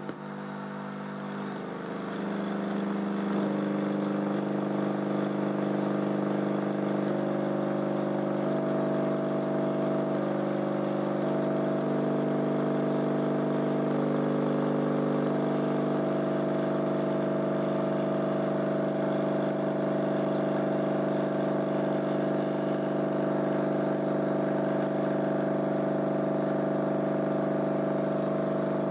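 Crossfire C3 12-inch subwoofers in a sealed box, driven by a 50 Hz test tone, giving a steady, buzzy drone. It starts suddenly and grows louder over the first few seconds, then holds steady. The air pressure moves the second subwoofer as a generator, which runs a small AC motor.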